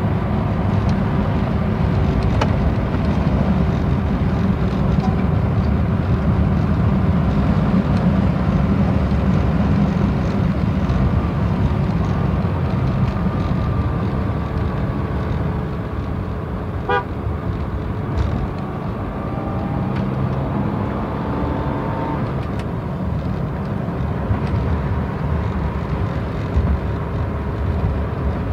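Jaguar police car driving at medium speed in town, heard from inside the cabin: a steady engine and road drone whose pitch rises and falls as the car speeds up and eases off. About halfway through comes a short toot.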